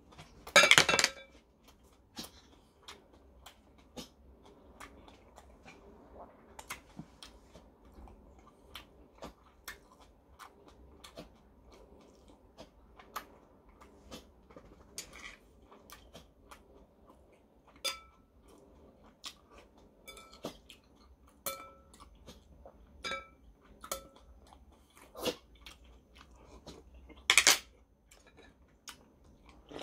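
A man eating at a table: quiet chewing, with chopsticks and dishes clicking and clinking now and then. There is a loud slurp from a small cup about a second in, and another loud, short noisy sound near the end.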